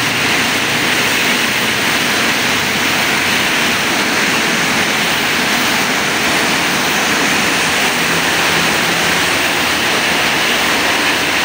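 Heavy tropical rain pouring down as a steady, dense hiss, with motorbikes and cars passing on the wet road.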